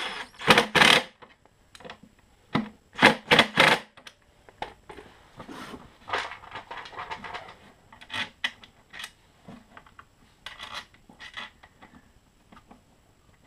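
DeWalt cordless drill-driver tightening bolts in short bursts, once about half a second in and three times around three seconds in. After that come fainter clicks and rubbing of parts being handled.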